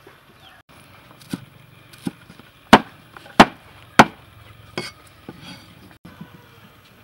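A cleaver chopping fresh green herbs on a thick wooden chopping block: about seven sharp, unevenly spaced chops, the three loudest in the middle.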